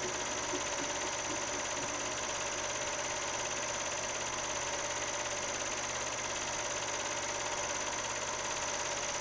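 A steady mechanical hum with hiss and no change.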